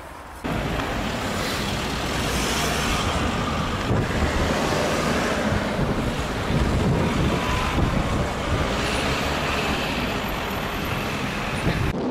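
Steady rush of wind on the microphone with road noise from a moving car, starting suddenly about half a second in.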